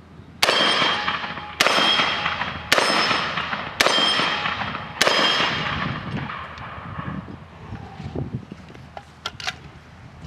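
UTAS XTR-12 semi-automatic 12-gauge shotgun fired five times in quick succession, about one shot a second, each shot trailing off in a long echo. A few light clicks follow near the end.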